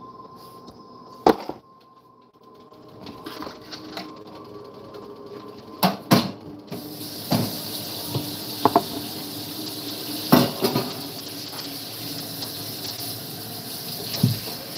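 Kitchenware knocked and set down on a counter: several sharp knocks and clatters. About seven seconds in, a kitchen range hood fan switches on with a sudden steady hiss and keeps running.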